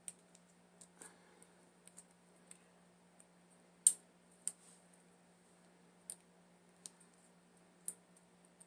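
Irregular single clicks of keys being pressed on a Dymo label maker's keypad, one sharper click about four seconds in, over a faint steady hum.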